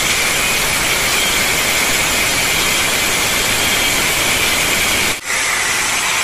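Bosch angle grinder cutting through the steel wires of a BRC welded-mesh panel: a loud, steady high whine and grinding rasp of the disc in the steel, with a brief break about five seconds in.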